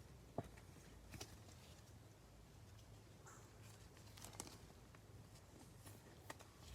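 Near silence with a few faint taps and light rustles: trading cards being handled.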